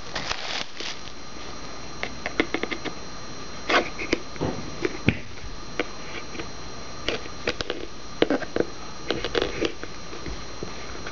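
Irregular crackling, clicking and rustling of packaging as hands struggle to open a sealed trading-card box.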